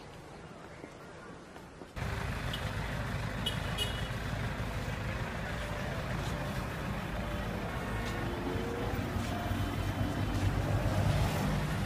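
Street traffic noise with a steady low vehicle engine rumble. It cuts in suddenly about two seconds in, after a faint hiss.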